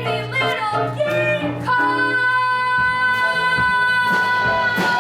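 Show-tune singing from a stage musical: a woman sings a quick run of short notes, then holds one long high note over the band accompaniment from about two seconds in.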